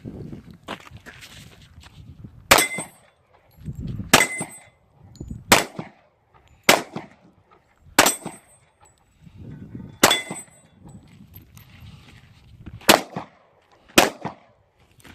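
Eight pistol shots fired one at a time, about one to three seconds apart, several followed by a brief metallic ring.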